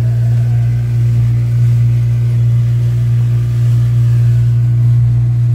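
Speedboat engine running at a steady speed under way, a loud, constant low hum.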